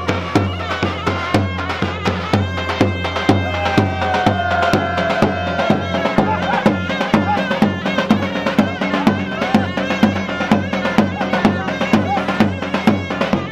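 Davul drum and zurna playing a halay dance tune: a fast, steady drum beat under a shrill, wavering reed melody.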